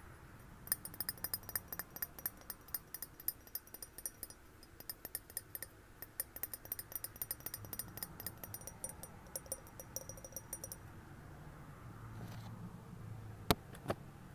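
Quick, irregular tapping on glass, with a high, clear ring to each tap, for about ten seconds. Then comes a short pause and two louder single taps near the end.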